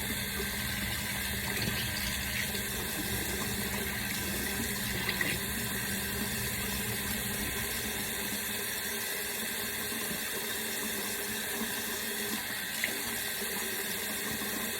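Tap water running steadily into a sink, with a couple of small knocks.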